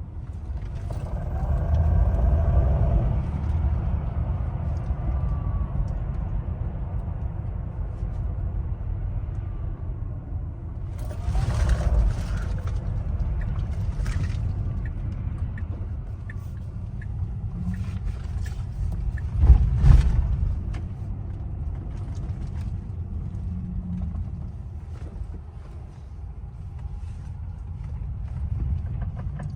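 Tesla Model X Plaid in motion: a steady low rumble, with a faint whine that wavers in pitch a few seconds in. This is the strange gearing sound the owner hears on the brand-new car. Two heavy thumps stand out, about 12 and 20 seconds in.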